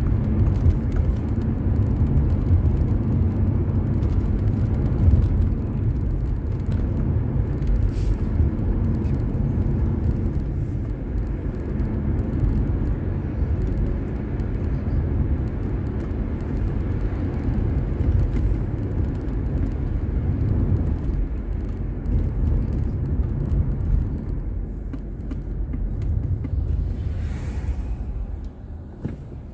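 Car driving on a road, its engine and tyres making a steady low rumble as picked up by a dashboard camera inside the car. A brief rushing sound comes near the end.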